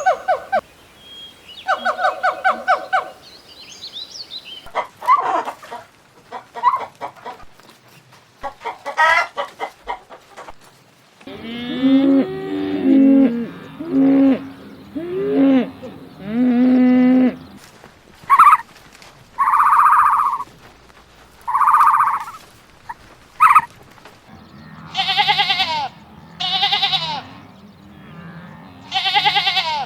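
Chickens clucking and calling in a run of separate pitched calls with short gaps between them.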